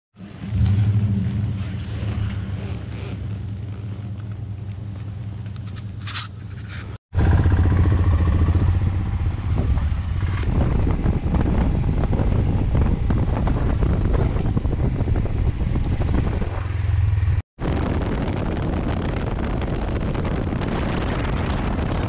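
Royal Enfield Himalayan's single-cylinder engine running steadily as the motorcycle is ridden, with two brief drop-outs about seven and seventeen seconds in.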